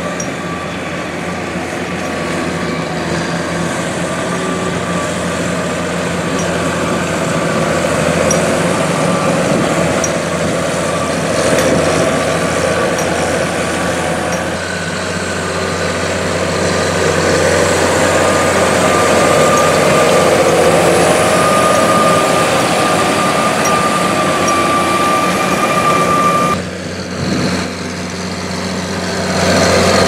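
Diesel engine of a John Deere tractor running steadily under load as it pulls a McHale V660 round baler picking up a hay swath, with a thin steady whine over the engine note. It grows louder as the tractor approaches, then dips briefly near the end.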